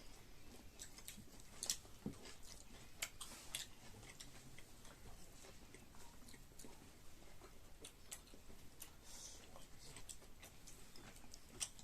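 Quiet eating sounds: chewing and biting into chicken, with scattered small clicks and crunches.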